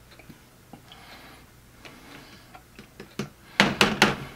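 Light clicks and taps from flour tortillas being handled over a food tray, ending in a quick run of several loud sharp clicks about three and a half seconds in.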